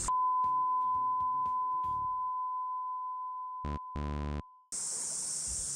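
Edited-in electronic sound effects: a steady, high beep tone lasting about four and a half seconds, with a short run of quick notes under its first two seconds. Near its end come two short buzzer blasts, the second longer.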